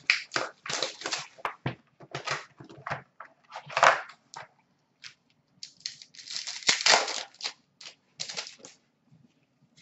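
Plastic shrink wrap crackling and tearing in irregular bursts as it is pulled off a box of hockey cards, with the densest crinkling about two-thirds of the way in.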